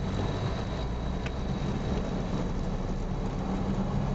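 Steady low rumble of a car driving on a dirt road, heard from inside the cabin: engine and tyre noise.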